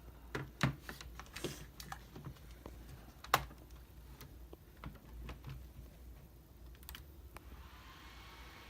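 Scattered clicks and taps of a laptop's plastic case and keyboard being handled and snapped back together, with one sharper snap about a third of the way in. A faint steady hum with a light whine starts near the end.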